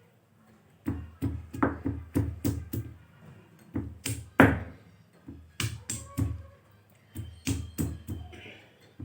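Stone pestle (batta) knocking down on a flat sil-batta grinding stone, coarsely pounding almonds and spices before grinding. The hard thuds come in irregular runs of about two or three a second with short pauses, and the loudest falls about four seconds in.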